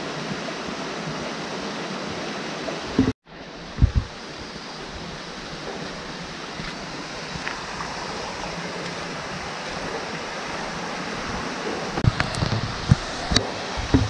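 Mountain stream rushing and splashing down a cascade over granite rock, a steady wash of water noise. The sound cuts out briefly just after 3 seconds, with a couple of knocks around then, and several sharp taps and knocks come near the end.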